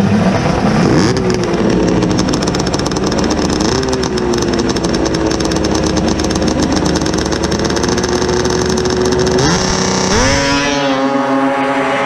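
Ski-Doo Pro Stock 800 three-cylinder two-stroke race snowmobile engine held at high revs on the drag-race start line, its pitch stepping up a couple of times. About ten seconds in it launches: the engine note climbs sharply as the sled pulls away down the track.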